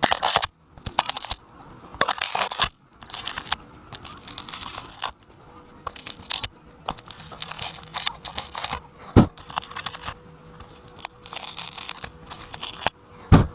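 Irregular crunching and rustling in uneven bursts, with a sharp knock about two-thirds of the way through.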